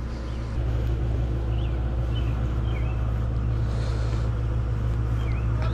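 A vehicle engine idling, a steady low hum that steps up slightly in level about half a second in and then holds even.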